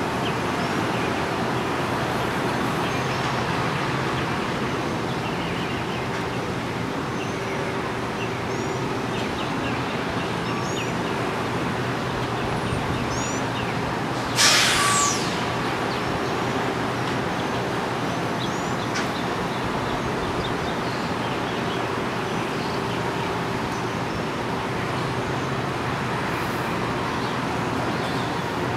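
Steady hum and rumble of city traffic heard from high above, with a short, sharp hiss like a vehicle's air brake about halfway through.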